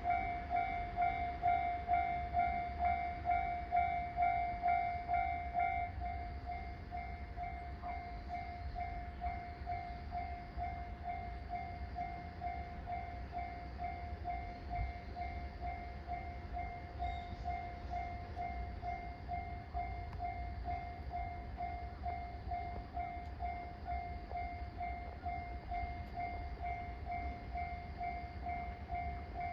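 Japanese railway level-crossing warning bell ringing, an even electronic ding about twice a second, the signal that a train is approaching. It is louder for the first six seconds, then rings on more softly.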